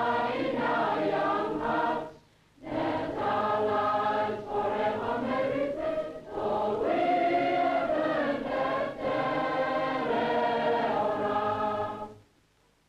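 A large choir of school students singing a welcome song in the Polynesian tradition. The singing breaks off briefly about two seconds in, then carries on and ends shortly before the end.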